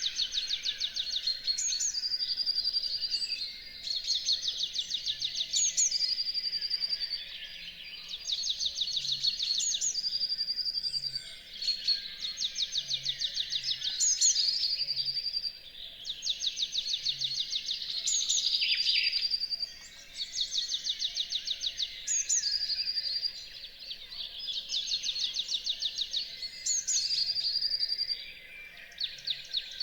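Dawn chorus of songbirds. One bird sings a rapid high trill ending in a held whistle, repeating the phrase every two to three seconds with short pauses between.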